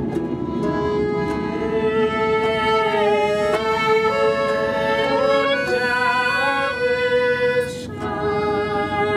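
Small acoustic folk ensemble playing and singing live: a man sings while plucking a long-necked lute, with a woman's voice joining, an accordion holding sustained notes and a violin. The music drops away briefly near the end, then the voices and instruments come back in.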